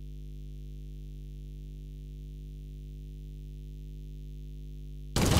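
A steady low hum made of several held tones. Just before the end, a short, loud burst of noise cuts in.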